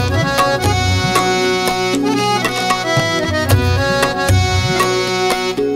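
Instrumental break in a Punjabi devotional song: tabla beats with deep bass strokes under a reed instrument holding and moving through melody notes.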